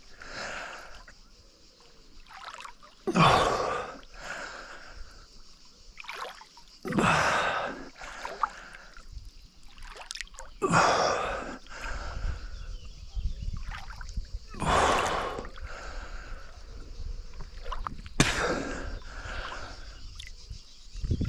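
A swimmer in a river breathing hard and splashing, with a loud gasp-and-splash surge about every four seconds as each stroke comes round.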